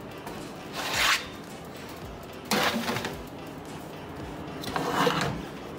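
Metal baking sheets scraping as they slide onto oven racks, three separate slides about two seconds apart, over quiet background music.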